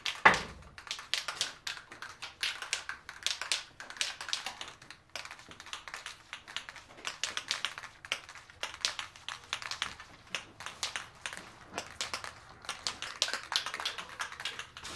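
Aerosol spray can of fast-drying Rust-Oleum primer being shaken hard, its mixing ball rattling in quick, steady clicks. The can is being shaken for the one minute its directions call for, to mix the primer before spraying.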